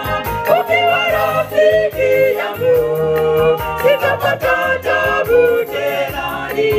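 A Seventh-day Adventist choir singing a Swahili gospel song, women's lead voices amplified through handheld microphones and holding long notes between phrases.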